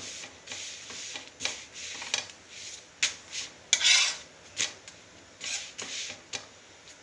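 Spatula scraping and pressing a thin chapati on a flat tawa griddle in short, irregular strokes, with a sharp tap about three seconds in and the loudest scrape about four seconds in. The chapati is being only half-roasted.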